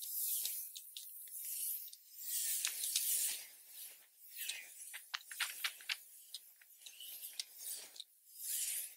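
Rustling and crackling of eucalyptus leaves and stems handled by hand, in repeated swells with many small sharp clicks and snaps.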